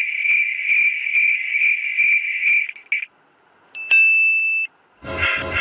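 Insect trilling: a steady high-pitched trill that stops about three seconds in. About a second later a single short ringing ding, and near the end a different sound begins.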